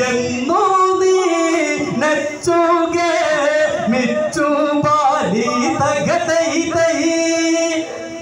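Group of men singing an Onakkali folk song together as they dance, in long held notes.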